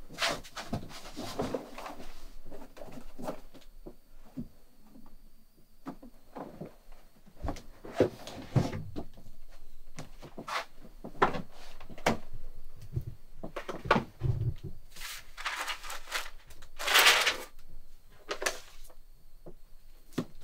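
Things being handled while packing a suitcase: scattered light knocks, soft thumps and rustles from a cupboard, its shelves and the items taken from them, with a longer, louder rustle near the end.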